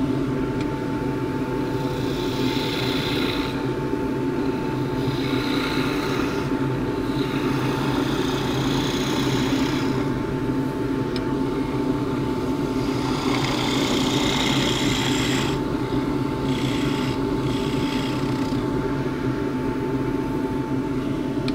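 Wood lathe running steadily with a constant hum while a skew chisel cuts a spinning juniper spindle. The cutting comes and goes in several passes of a second or two each.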